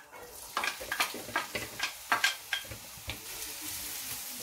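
Chopped onion dropped into hot olive and vegetable oil in a non-stick frying pan, sizzling as it lands. Sharp taps and scrapes of a wooden spatula knocking the onion off a bowl and stirring it in the pan for about three seconds, then an even sizzle of onion starting to fry.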